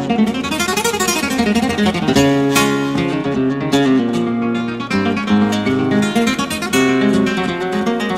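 Flamenco guitar playing a zapateado: quick runs of single notes climbing and falling across the strings, broken by a few sharp strummed chords.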